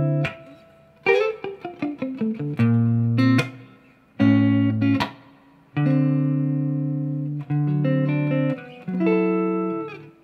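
Telecaster-style electric guitar playing a neo-soul phrase that substitutes Em7♭5 and Gm6 voicings for a C7 chord. A quick run of single notes comes about a second in, followed by several chords that ring and fade.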